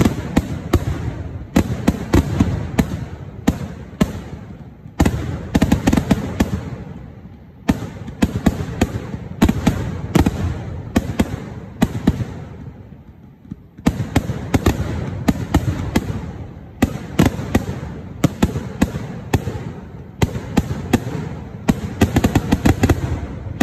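Temple-festival fireworks display (Kerala vedikettu): rapid, overlapping bangs of aerial shells and crackers in volleys, dying down briefly about three times before starting again.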